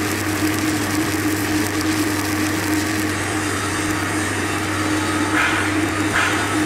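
Stick (SMAW) welding arc crackling and sizzling steadily as the electrode burns along a seam on a steel vessel, over a steady low hum.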